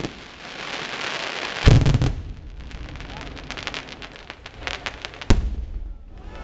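Aerial fireworks bursting: a dense crackling of glittering stars, a loud shell burst a little under two seconds in, then more crackling and a sharp single bang near the end.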